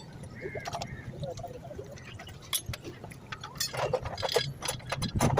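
Scattered light clinks and knocks over a low steady hum, coming thicker in the last second and a half.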